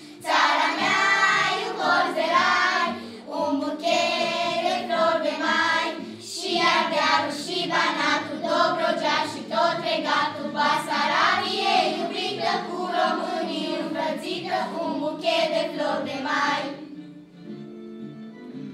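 Children's choir of girls singing together over an instrumental accompaniment; the voices stop about seventeen seconds in and the accompaniment plays on alone.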